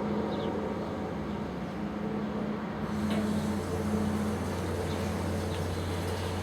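An unexplained low, steady droning hum with a couple of held tones. The higher tone fades out a little past halfway, while a deeper hum comes in about three seconds in.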